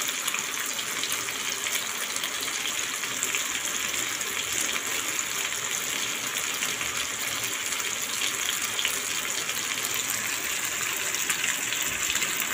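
Marinated seer fish (vanjaram) pieces shallow-frying in oil in a flat pan: a steady sizzling hiss with fine crackles, from the fish's first side before it is turned.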